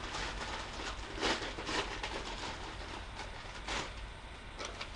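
Rustling of mail packaging being handled and opened, in a few short bursts over a low steady hum.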